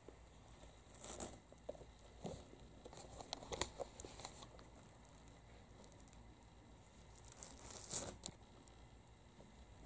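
Faint scratching and rustling as kittens' paws and claws scrabble on a coiled rope basket, in short scattered bursts, loudest about a second in, around three and a half seconds in, and near eight seconds.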